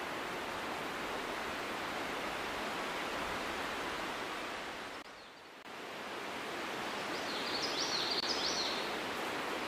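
Steady outdoor background hiss that dips briefly about five seconds in, with a quick run of high, falling chirps near the end.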